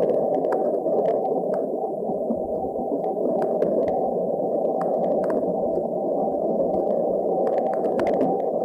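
NASA sonification of the Sun's vibrations, solar data turned into audio: a steady, dense, low noise with faint clicks scattered through it.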